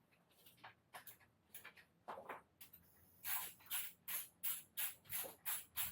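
Gas torch being triggered again and again without lighting: short hisses of gas, about two or three a second, starting about three seconds in. Its igniter gives no spark.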